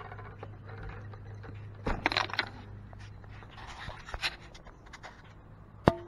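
Handling noises from working a small wire connector onto the switch wiring of an Echo 9010 backpack blower: scraping and clicking of plastic and metal parts about two seconds in and again around four seconds, then one sharp click near the end, all over a low steady hum.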